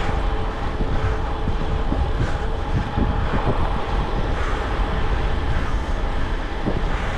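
Wind rushing over the microphone of a bicycle moving fast, a steady low rumble with a faint constant hum under it.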